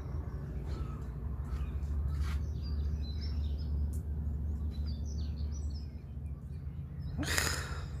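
Small birds chirping in short high calls over a steady low outdoor rumble. A brief rush of noise comes near the end.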